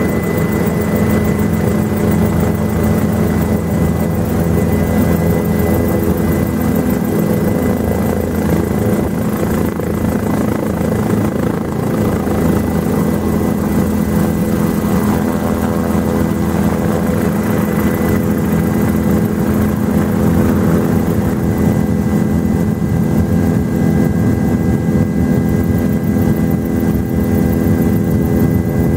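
Helicopter engine and rotor running steadily, heard from inside the cabin, with a low drone and a thin high whine, as the helicopter lifts off.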